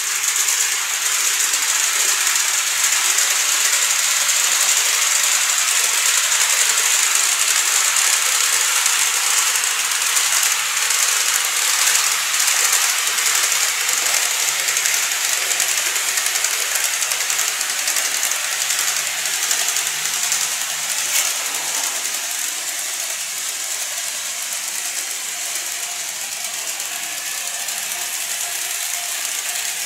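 N-gauge model train (KATO DF200 locomotive with Nanatsuboshi coaches) running along its track: a steady, high mechanical whirring and rattling of the small motor, gears and wheels, a little quieter in the last few seconds.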